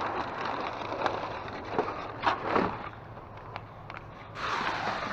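Rustling and clattering of recyclables being rummaged through in a dumpster, with several sharp knocks in the middle, over a low steady hum.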